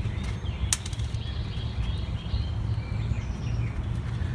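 Steady low background rumble with faint bird chirps, and one sharp click about three-quarters of a second in.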